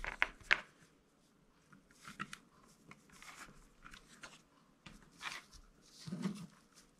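Faint handling noises as a LiPo battery's XT60 plug is pushed onto the charger's output lead: a few sharp clicks in the first half second, then scattered quiet taps and rustles, with a short low sound about six seconds in.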